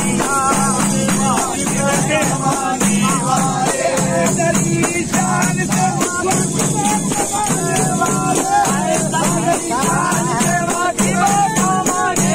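Hand-held frame drums (daf) beaten in a fast, steady rhythm, with men singing together over them.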